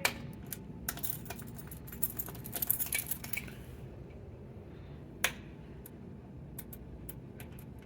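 Scattered light clicks and rattling from something being handled, with one sharp click about five seconds in.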